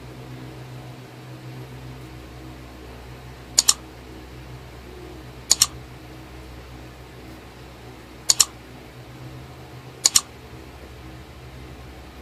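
Four mouse-click sound effects from a like-and-subscribe button animation, each a quick double click, spaced about two to three seconds apart. A steady low hum runs underneath.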